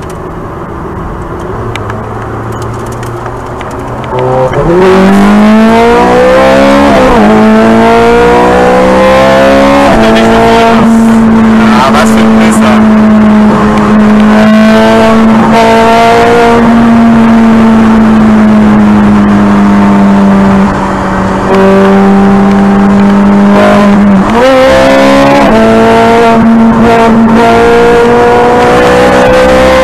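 Ferrari 430 Scuderia's naturally aspirated 4.3-litre V8 heard from inside the cabin: running quietly at first, then about four seconds in it goes to full throttle. The revs climb, with the pitch dropping sharply at quick upshifts twice. The revs then hold high and steady, dip briefly about two-thirds of the way through, and after another shift near the end climb again.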